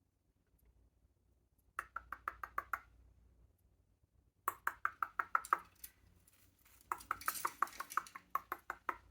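A parrot making clicking sounds in imitation: three quick runs of sharp, evenly spaced clicks, about seven a second, the last run the longest.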